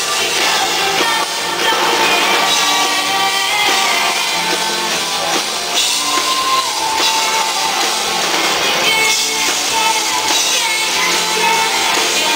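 Pop-rock song played loud by a band with guitar and drums, with a singer's voice over it: live music at a sound check.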